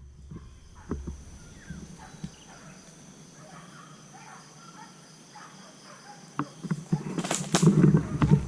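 Quiet outdoor ambience with faint chirps and steady high-pitched tones, then a run of loud, irregular thumps and rustling close to the microphone in the last two seconds, with two sharp cracks among them.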